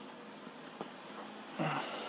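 A faint click about a second in, then a short breathy grunt near the end as a loaded backpack is hoisted on a handheld digital luggage scale.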